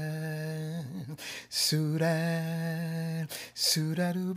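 A male jazz singer scat singing without accompaniment, holding long steady notes on nonsense syllables. The notes break off twice, briefly, about a second in and again about three seconds in.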